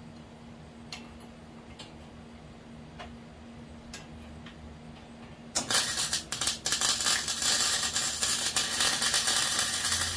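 Flux-core wire-feed welder's arc crackling steadily for about five seconds, starting a little past halfway in. Before it there are only a few faint clicks over a low hum.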